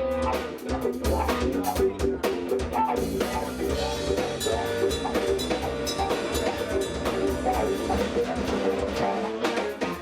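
Live jazz band playing an upbeat groove, with a drum kit keeping busy time under pitched bass and melody lines.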